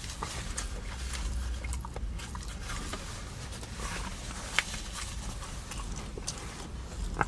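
Soft wet mouth clicks and smacks of a person eating, with one sharper click about four and a half seconds in, over a steady low hum.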